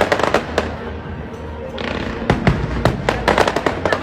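Daytime fireworks going off: rapid bangs and crackles, a cluster at the start, a short hiss just before halfway, then a dense barrage of cracks through the second half.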